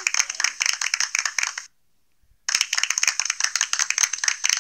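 Recorded applause sound effect played from a phone speaker: a dense patter of claps that cuts off abruptly about one and a half seconds in, then starts again just under a second later.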